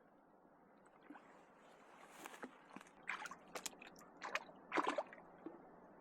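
Creek water running, with a string of short splashes and sloshes between about two and five seconds in.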